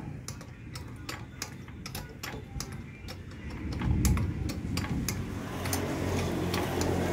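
Rapid metallic clicking, about four clicks a second, typical of a ratchet wrench being worked to force out a stuck ball joint, over a steady low hum; a louder low thud about four seconds in.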